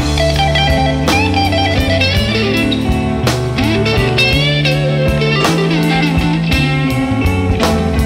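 Background blues-rock music led by electric guitar, with notes bending up and down over a steady beat.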